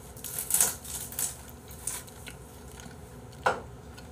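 Quiet eating: a handful of short clicks and taps from chopsticks against ceramic bowls and chewing of rice, with no lip-smacking. The sharpest click comes about three and a half seconds in.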